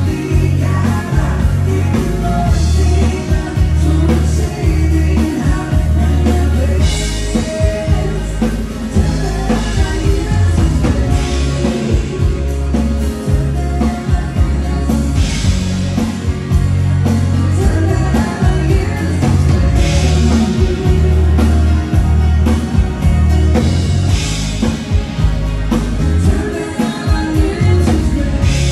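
Swedish dansband playing a ballad live, with singing over drums, bass and guitar.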